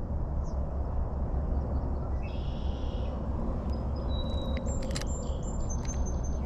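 Birds chirping and whistling in short high calls over a steady low rumble, with a few sharp clicks about five seconds in.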